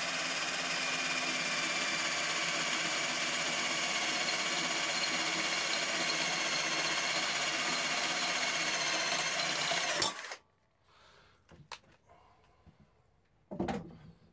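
Battery-powered cordless drill running steadily at speed, drilling out mounting holes, then cutting off suddenly about ten seconds in. A few light clicks and a knock follow.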